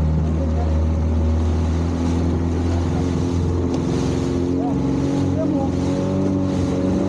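Outboard motor driving a small open boat at speed, running steadily and rising a little in pitch partway through as the boat picks up speed, with water rushing past the hull.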